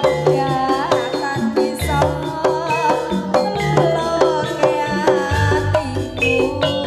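Live jaranan music: a gamelan-style band with hand drums keeping a repeating low beat, metallophones striking short ringing notes, and a wavering melody line over them.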